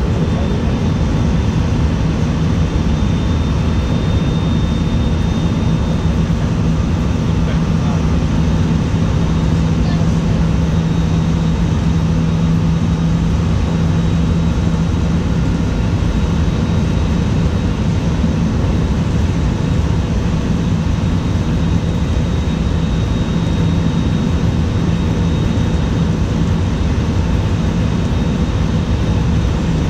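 Electric commuter train running at speed, heard from inside the front car: a steady rumble of wheels on rail with a constant low hum.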